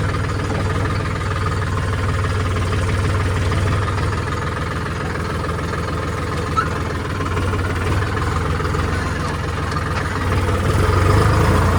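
A vehicle's engine idling steadily with an even low hum.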